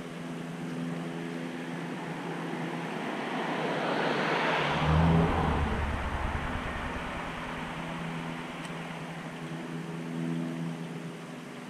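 A vehicle passing by, its noise rising to a peak about five seconds in and then fading, over a steady low hum.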